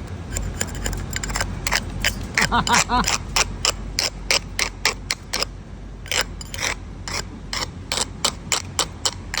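A steady series of sharp clicks, about three a second, running on for several seconds.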